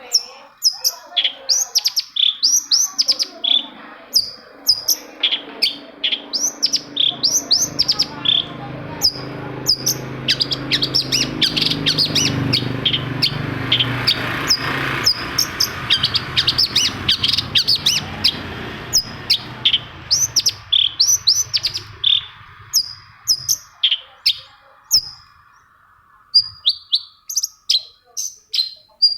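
Long-tailed shrike (cendet) calling in quick series of short, sharp notes, each falling in pitch. A low rumbling hum swells under it through the middle and fades away before the end.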